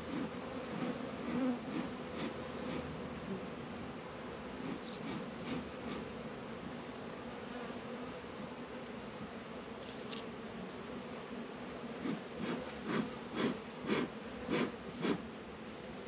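Honey bees buzzing steadily around an open hive being fed sugar syrup, a low hum. In the last few seconds a run of short puffs, about two a second, from a bee smoker's bellows being pumped.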